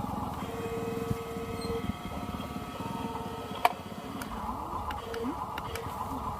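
Remote-control construction vehicles running: a steady electric motor and gear buzz, with a held electronic tone for just over a second near the start and one sharp click a little after halfway.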